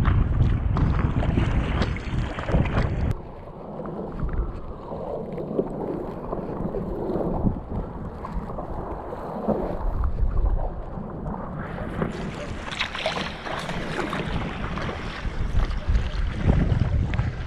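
Wind buffeting the microphone for the first few seconds, then choppy sea water splashing and slapping against the bow of an inflatable stand-up paddleboard as it is paddled through the waves. The splashing grows brighter and busier in the last few seconds.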